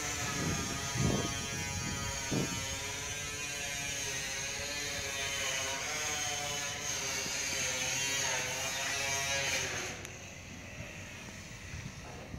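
A small motor or engine running steadily with a whirring hum whose pitch wavers slightly, stopping about ten seconds in. A few low thumps come in the first couple of seconds.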